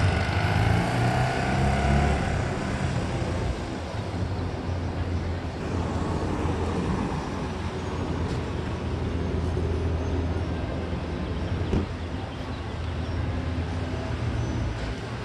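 Street traffic: a passing vehicle's engine and tyres are loudest for the first few seconds, then the sound settles into a steady traffic rumble. There is one sharp tick near the end.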